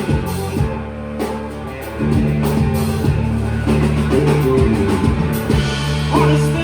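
Rock band playing live: drum kit, electric guitar and bass in an instrumental stretch, the full band coming back in louder about two seconds in.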